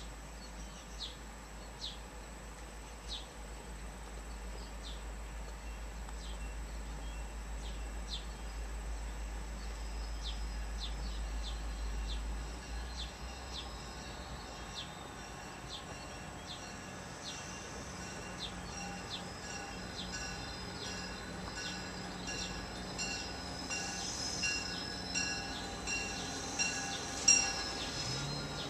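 MBTA commuter rail train arriving at the station, its running sound growing louder as it draws alongside, with a bell ringing steadily as it comes in. Faint bird chirps sound throughout.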